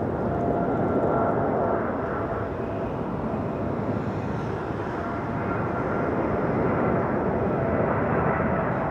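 Boeing 747-8 airliner on final approach, its four GEnx turbofans at low approach thrust: a steady rushing jet noise with a faint high whine, swelling slightly as the aircraft comes closer.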